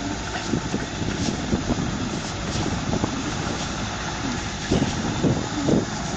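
Tracked Massey Ferguson tractor's engine running under load as it drags a leveling board through flooded paddy mud, with mud and water churning and splashing around the board and tracks. Several louder sloshes come near the end.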